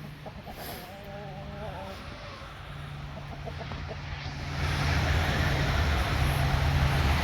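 Hens clucking briefly over the steady hum of a small generator engine running. About four and a half seconds in, the engine noise grows much louder.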